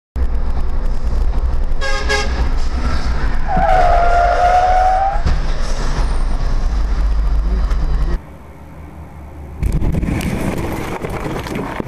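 Car horns over the steady rumble of a vehicle's engine and road noise: a short honk about two seconds in, then a long, steady horn blast lasting nearly two seconds. The level drops suddenly after about eight seconds and comes back up a second or so later.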